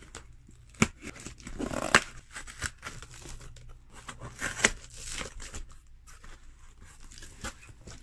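Scissors cutting through packing tape on a cardboard box, with tape tearing and cardboard flaps rustling as the box is opened: a few sharp snips and short rasping tears.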